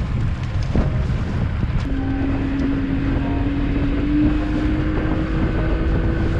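Mercury 75 outboard motor driving a small boat under way, with wind buffeting the microphone. About two seconds in, a steady whine comes in and creeps slowly up in pitch.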